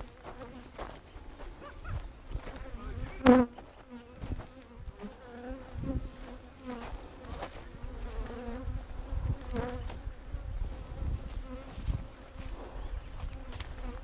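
A mass of disturbed, defensive bees buzzing close around the microphone, a wavering buzz that swells and fades as bees fly past, with a sharp knock about three seconds in and low handling rumble.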